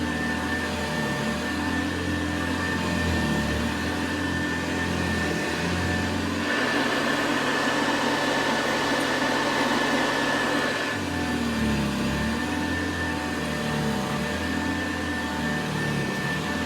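Vintage Hoover 707 upright vacuum cleaner's motor running steadily with a high whine. For about four seconds in the middle the sound changes, turning more hissy with a different low hum, then returns. The owner feels the motor doesn't sound 100%.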